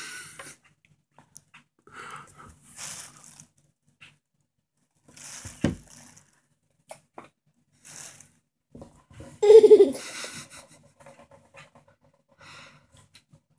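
A toddler's breathy huffs and mouth noises, scattered through, with one louder short vocal sound about nine and a half seconds in. A single knock comes about five and a half seconds in.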